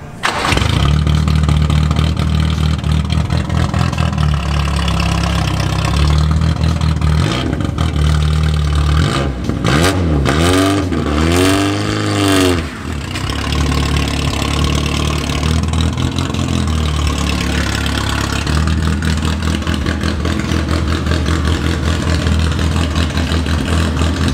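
Toyota Starlet KP61's four-cylinder engine idling loudly through its exhaust, blipped up and back down about three times around ten to twelve seconds in.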